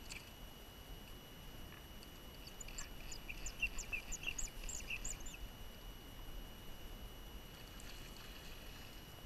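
A bird chirping: a quick run of short, high chirps lasting about two and a half seconds in the middle, over a light rumble of wind on the microphone.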